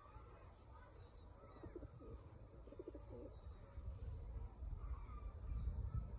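Domestic pigeons cooing, a few low coos about two to three seconds in, with faint chirps of other birds behind. A low rumble grows louder near the end.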